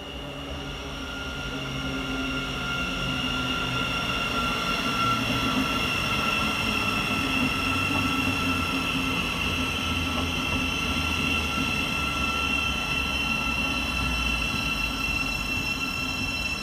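Thameslink Class 700 electric multiple unit drawing slowly into the platform and passing close by. A high steady whine falls slightly in pitch as it slows, over a low rumble of running gear, growing louder over the first few seconds.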